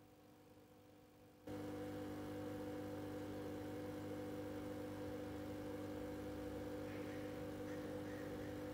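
A steady electric hum with several fixed pitches starts abruptly about a second and a half in and holds level.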